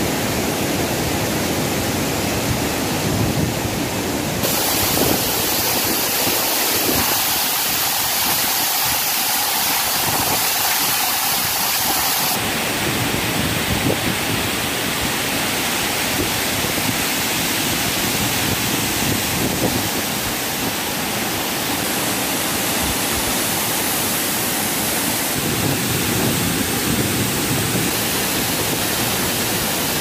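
Waterfall pouring onto rocks: a loud, steady rush of falling and splashing water. Its tone shifts abruptly several times.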